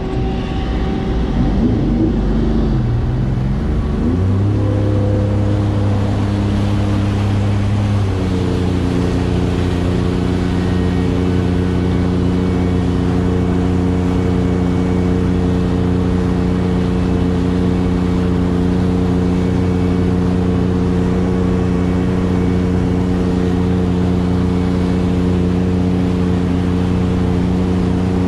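Sea-Doo personal watercraft's supercharged three-cylinder four-stroke engine running at slow cruising speed. The pitch wavers for the first few seconds, settles, then steps up once about eight seconds in and holds steady.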